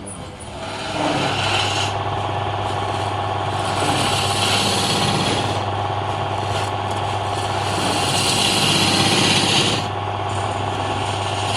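A woodworking machine's motor running steadily with a low hum, and a hissing cutting noise that swells and fades as wood is worked.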